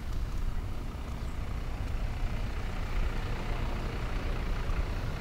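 Wind rumbling on the microphone of a camera carried on a moving bicycle, with road noise; a hiss grows stronger about two seconds in.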